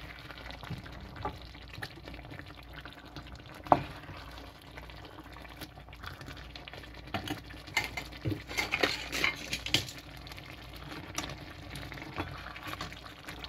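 A wooden spatula stirring and turning a thick curry in a frying pan: soft scrapes and knocks against the pan, one sharper knock nearly four seconds in, and a busier stretch of scraping around eight to ten seconds. Metal tongs take over near the end, and the curry sizzles faintly underneath.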